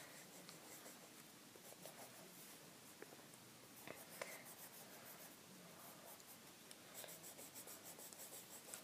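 Faint scratching of a colored pencil on paper, in short repeated strokes.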